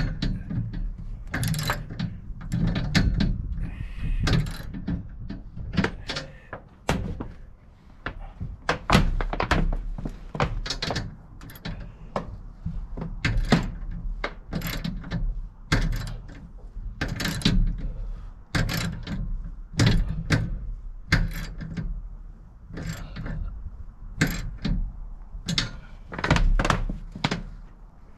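Hand ratchet wrench tightening the bolts that hold solar racking rails down: a run of sharp metallic clicks and clanks, about one a second, over a low rumble.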